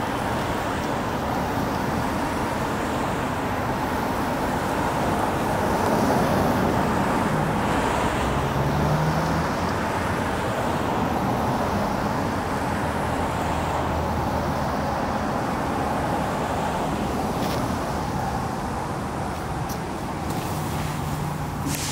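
Steady road traffic noise: a constant hum of passing cars, with a low engine drone swelling a little about a third of the way in and again near the end.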